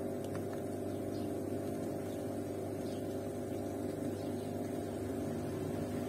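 Zanussi front-loading washing machine running, its motor giving a steady, even hum as the drum turns.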